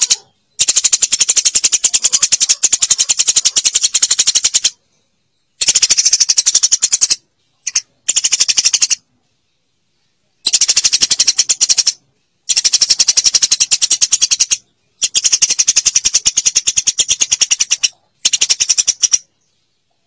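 Eurasian tree sparrow chattering: fast runs of sharp, high chirps lasting one to three seconds each, broken by abrupt silent gaps.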